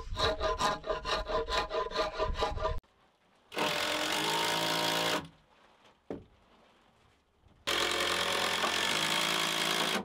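A quick, even run of rasping strokes on wood, about five a second, for the first three seconds. Then a cordless drill runs twice, once briefly and once for a couple of seconds near the end, driving into the log wall.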